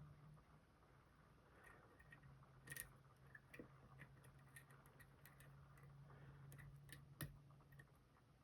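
Faint, scattered ticks and clicks of a lock pick working the pins inside an Assa Guideline high-security lock, with two slightly louder clicks near 3 seconds and 7 seconds in. A faint steady low hum underneath.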